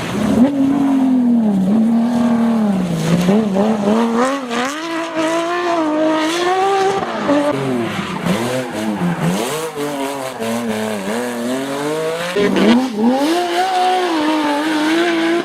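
Porsche racing car's engine at full load, its pitch repeatedly climbing and dropping as it accelerates, shifts gear and brakes for corners, with a sharp drop about twelve seconds in.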